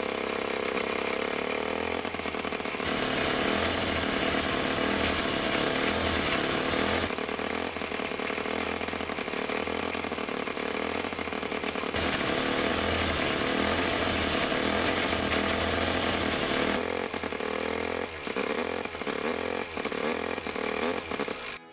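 Small see-through Wankel rotary engine running on charcoal lighter fluid premixed with two-stroke oil. It speeds up and settles back twice, then runs unevenly and cuts out near the end.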